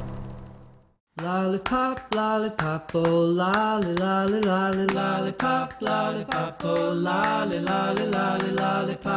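Music: the tail of a fading sting dies away into about a second of silence, then a voice sings a melody in short phrases with accompaniment, stopping just before the end.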